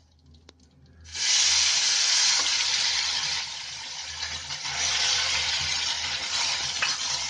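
A few faint clicks, then about a second in a loud, steady sizzle starts as wet onion paste goes into hot oil in a steel kadhai and is stirred.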